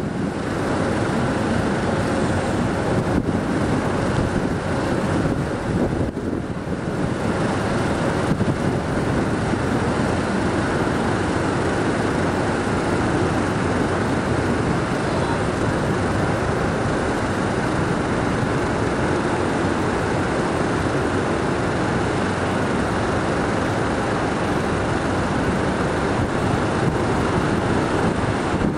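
Jet airliners taxiing, among them an Embraer E190AR: steady turbofan engine noise, an even rumble and hiss that hardly changes.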